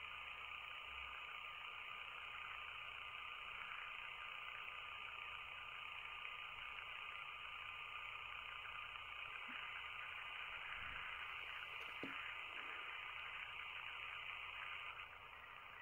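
Steady background hiss with a faint high whine, and a few faint light taps near the middle.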